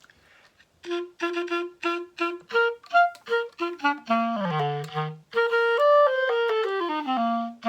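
A clarinet played solo. About a second in come a string of short repeated notes, then a quick run down to low notes, then longer held notes stepping downward.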